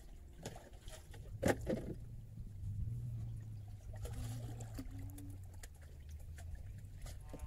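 Water sloshing against the hull of a small wooden fishing boat, under a steady low rumble, with a few knocks of handling on the boat, the loudest about a second and a half in.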